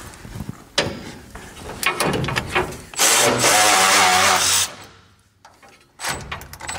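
Cordless drill/driver with a 9 mm socket running for about a second and a half, about three seconds in, turning a bolt at the base of a steel drawer cabinet. Metal clicks and rattles of the socket and cabinet come before and after it.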